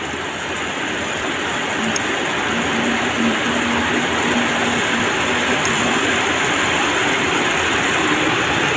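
Paddy rice seed pouring in a steady stream from a sack into a plastic bucket of water, a dense continuous hiss that grows a little louder as the pour goes on.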